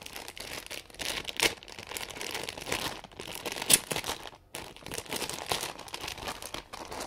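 Crinkly plush-toy packaging being handled and cut open, a continuous crinkling and rustling with sharp crackles, loudest about one and a half seconds in and again near four seconds.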